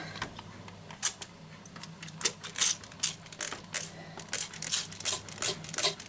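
Hand trigger spray bottle squirting a descaling solution onto a sink and tap. The trigger is pumped again and again, each pull a short, sharp hiss, about two to three a second from about a second in.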